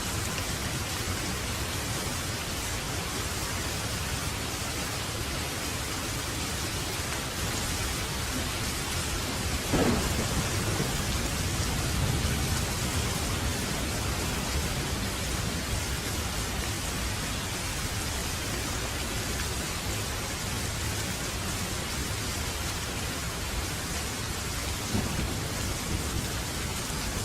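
Steady rain, with a clap of thunder about ten seconds in that rolls on as a low rumble for a few seconds.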